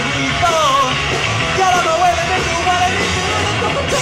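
Live punk rock band playing loudly, electric guitar and bass under a vocalist who sings and shouts over them.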